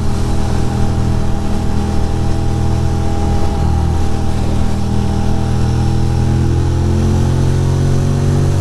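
A 2006 Ducati Monster 620's air-cooled L-twin engine running under way on the road, heard from the rider's seat. Its note dips briefly about three and a half seconds in, then climbs steadily as the bike picks up speed.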